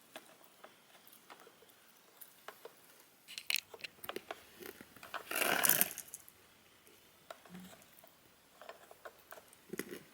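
Faint clicks and knocks of the chainsaw being handled while it is not running, with one short noisy rush about five seconds in.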